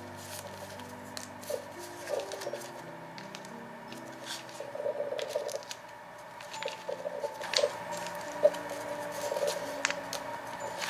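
Paper stickers and cut-out paper pieces rustling and crackling as fingers sort through a small wooden drawer of them, with a few sharper clicks about two thirds of the way in. Soft background music with slow held notes runs underneath.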